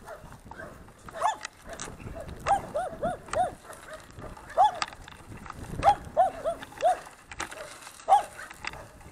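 A dog barking in quick runs of two to four barks, again and again.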